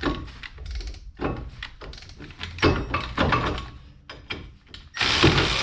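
Milwaukee cordless impact wrench hammering in several short bursts on a seized, rusty brake caliper bolt that won't break loose; the longest and loudest burst comes near the end.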